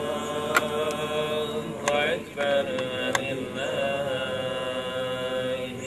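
A single voice chanting Quranic recitation in long, drawn-out held notes that bend slowly in pitch, with a short pause for breath about two seconds in.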